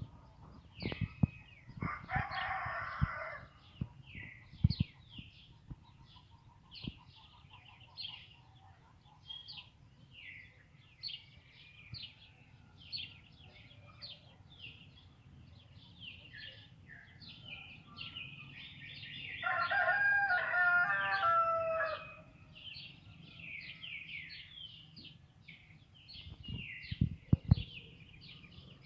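Rooster crowing twice, a short crow about two seconds in and a longer full crow about twenty seconds in. Small birds chirp rapidly and without pause throughout, with a few sharp clicks near the end.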